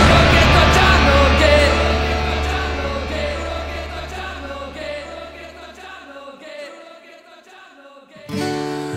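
Rock band music ending: the last chord and a held low bass note ring out and fade away over about six seconds. Near the end, softer music starts with a sustained chord.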